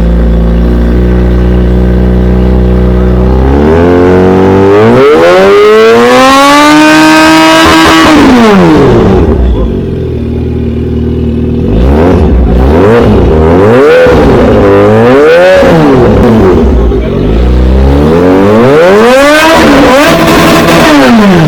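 Kawasaki Z H2's supercharged inline-four breathing through an aftermarket Orion exhaust with the catalytic converter removed, idling and then free-revved. A long rev climbs about four seconds in, holds briefly at the top and drops back to idle, then come three quick blips and another long rev near the end.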